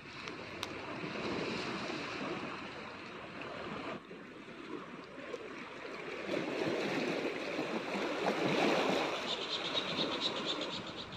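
Sea surf washing over a rocky, pebbly shore: a steady rushing that swells louder about halfway through.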